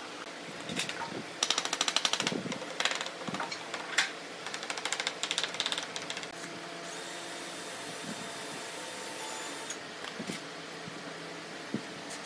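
Cordless drill driving screws into wood in short runs of rapid clicking, with a few sharp knocks, then a steadier run of a few seconds past the middle.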